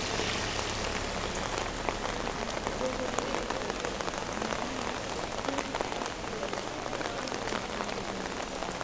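Heavy rain falling steadily, with many sharp close drop hits ticking through the steady hiss.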